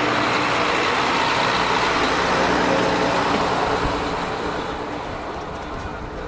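Tsugaru Railway stove train pulling out: its diesel running and the wheels of the coaches and the Tsugaru 21 railcar rolling past close by. The sound fades steadily from about four seconds in as the train moves away.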